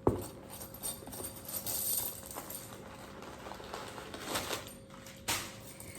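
Handling a quilted shoulder bag with a gold chain strap: a sharp snap at the start, then rustling and scattered light clicks and clinks as the bag is opened.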